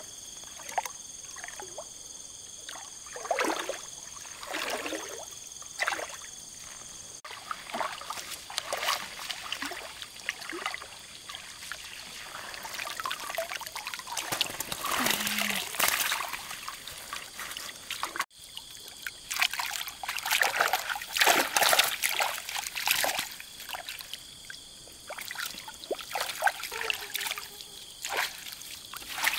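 Water splashing and trickling in a series of irregular splashes, with dripping between them; the heaviest splashing comes about two thirds of the way through.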